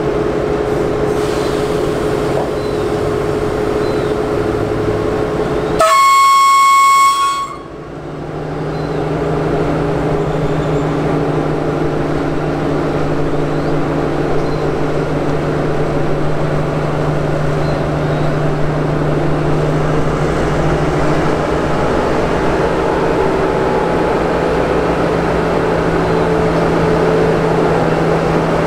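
Alsthom diesel-electric locomotive running at a station stand, with one loud horn blast of about a second and a half some six seconds in. After the horn a deeper steady engine note comes in and holds.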